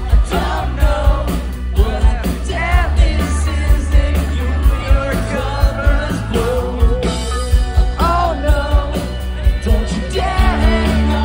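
A rock band playing live and loud, with a sung lead vocal over electric guitars, heavy bass and drums, heard from within the audience.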